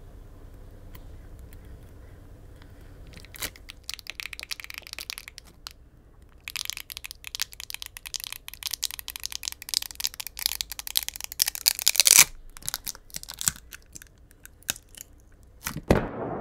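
Battery adhesive crackling and tearing as a Samsung Galaxy S24's battery is peeled up from the phone frame, the adhesive softened with isopropyl alcohol. The crackle comes in dense runs, heaviest in the middle, then thins out. Near the end a sudden loud boom begins.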